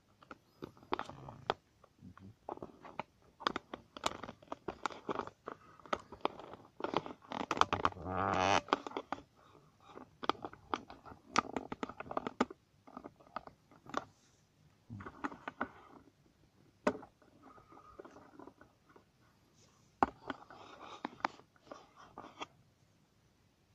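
Irregular crunching, scraping and tapping close to the microphone as a kitten plays on a carpeted floor, busiest and loudest about eight seconds in.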